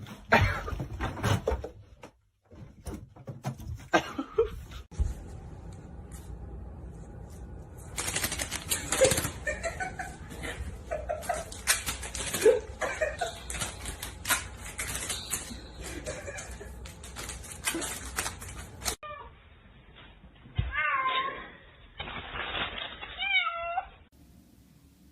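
Domestic cats meowing in a run of short clips, ending with three or four long wavering meows.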